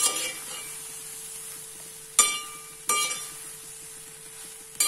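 A spoon knocks against a brass uruli while cooked rice is mixed in. There are four knocks, each ringing briefly, over a faint steady hum.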